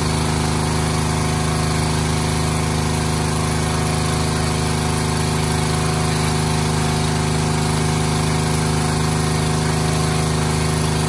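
Small gas engine of a pressure washer running at a steady, unchanging speed.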